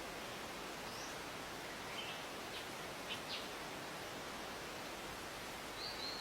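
A few short, high bird chirps over a steady background hiss: one rising note about a second in, a cluster of brief notes around two to three and a half seconds in, and another call near the end.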